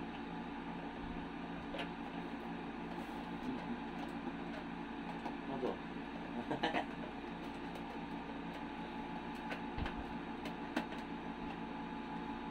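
A few light clicks and knocks from a plastic car armrest console box being handled and opened, over a steady electrical hum.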